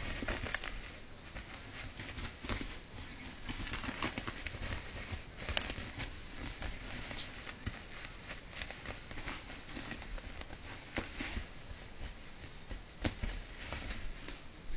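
Abyssinian kitten chasing its own tail on a blanket: a steady patter of soft rustling and little scratching clicks as its paws and body scrabble over the fabric, with one sharper click about five and a half seconds in.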